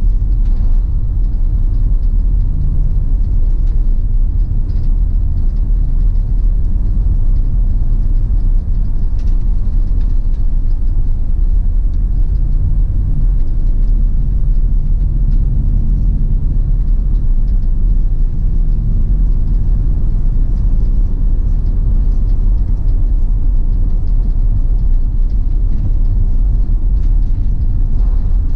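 Steady low rumble of a vehicle driving on a paved road, heard from inside the cab: engine hum and tyre noise.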